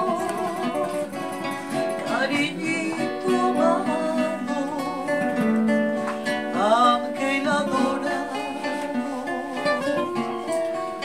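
A woman singing a melody with vibrato, accompanied by a plucked acoustic guitar and a small strummed guitar-like string instrument.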